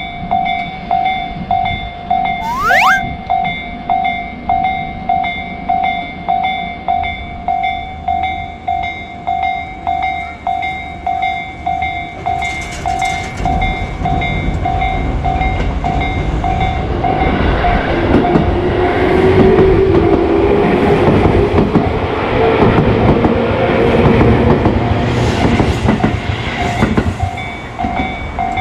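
Level crossing alarm ringing its repeated electronic kan-kan tone, a little under two strikes a second. A train comes in from about halfway through, running past loudly with a rising whine and clatter, then eases off near the end.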